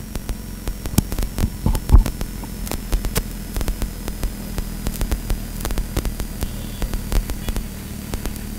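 Steady low electrical hum with irregular crackles and clicks through it.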